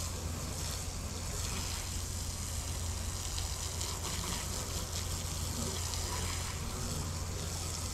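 Water spraying steadily from a hose wand onto a fiberglass truck topper shell as it is washed down after sanding, over a steady low hum.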